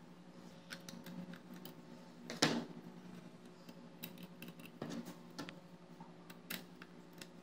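Light clicks and taps of wires being fitted to a small rocker switch in a metal switch box and its terminal screws turned with a screwdriver, with one louder knock about two and a half seconds in. A faint steady hum runs underneath.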